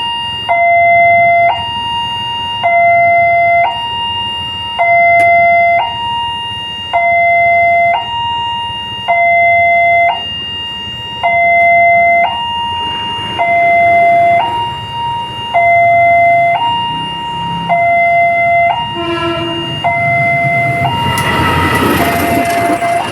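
Electronic railway level-crossing warning alarm sounding a loud two-tone alternating signal, switching between a lower and a higher tone about once a second, warning that a train is approaching. Near the end, the rumble and noise of the oncoming train grow under it.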